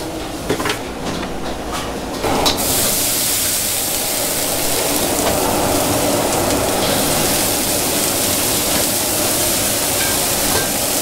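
A few sharp clacks, then a loud, steady hiss that comes on suddenly about two and a half seconds in and holds.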